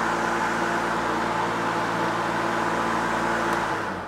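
TackLife KDLM4040A 40-volt battery lawn mower running its electric motor and blade at a steady hum, then shutting off and winding down near the end.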